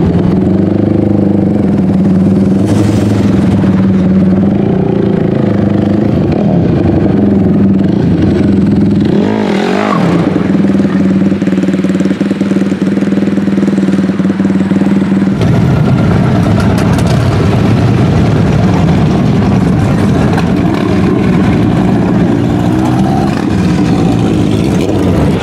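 Dirt bike engine running and idling, with a rev that sweeps up and falls back about ten seconds in. The engine sound changes abruptly a little past the middle.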